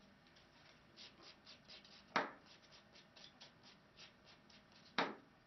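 Coarse nail file rubbed in quick short strokes over the surface of a French tip, etching it. Two sharp clicks stand out, one about two seconds in and one near the end.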